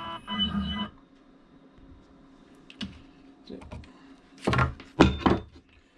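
CNC machine's axis drive humming with a steady multi-tone whine as it runs the Z-axis probing cycle, stopping about a second in. Then a few light clicks and two loud thunks about half a second apart near the end.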